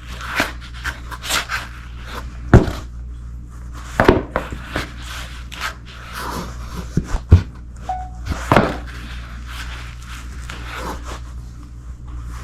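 Shoes on a hardwood floor: irregular steps with sharp heel knocks and softer scuffs, the loudest knocks about two and a half, four, seven and eight and a half seconds in.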